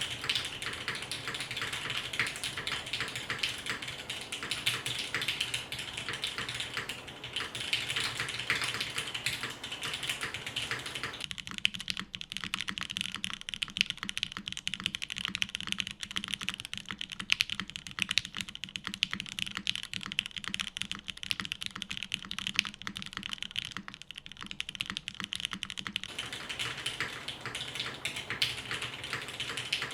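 Custom mechanical keyboard typed on continuously at a quick, even pace: Gateron Oil King linear switches lubed with Krytox 205g0, on a 2 mm polycarbonate plate in a zekk.works RBB case, with GMK doubleshot ABS keycaps and TX stabilizers.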